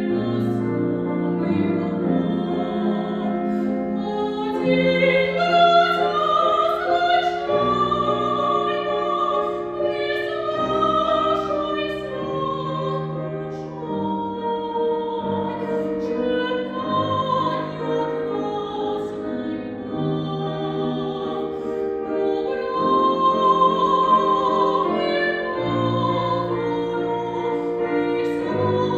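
A female classical singer sings an art song in operatic style, holding long notes with vibrato over a piano accompaniment.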